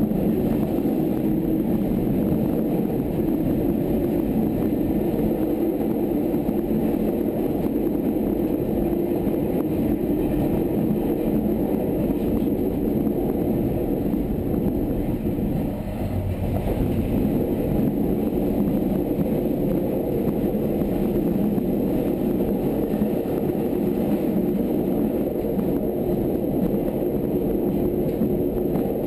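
Wellington suburban electric multiple-unit train running at speed, a steady noise of wheels on track and running gear heard from the cab.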